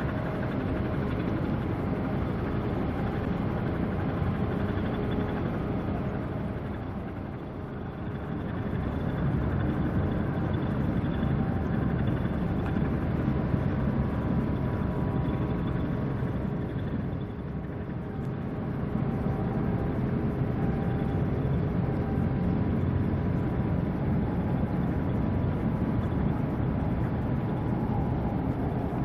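Steady low engine rumble with a few faint humming tones, easing briefly twice before picking up again.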